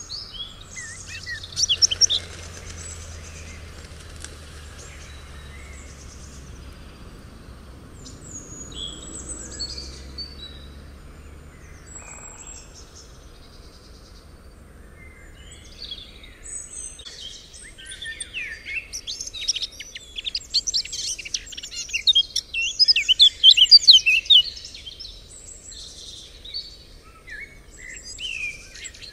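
Songbirds singing and chirping. A dense run of rapid, high notes grows from about two-thirds of the way through and is the loudest part.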